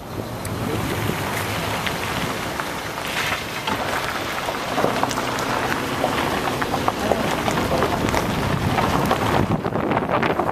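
A vehicle driving over a gravel road: a steady rush of road and wind noise with many small crackles, and wind buffeting the microphone.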